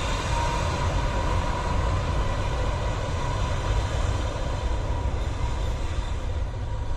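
Jet airliner engines at takeoff power: a loud, deep rumble with a steady whine through it.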